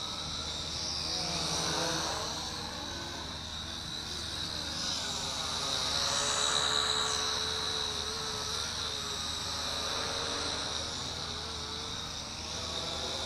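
Huanqi HQ H899 quadcopter's motors and propellers whining in flight, the pitch rising and falling as it speeds up, slows and turns.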